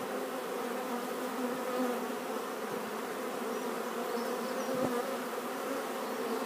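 Honey bees buzzing around a hive stack: a steady hum of many bees in flight. A soft knock about five seconds in.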